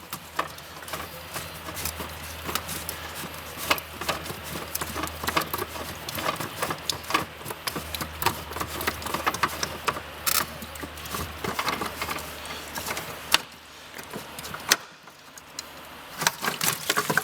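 Oil filter wrench clicking, scraping and rattling against the heater's split nuts as they are unscrewed, many small irregular knocks. A steady low hum runs underneath and stops a few seconds before the end.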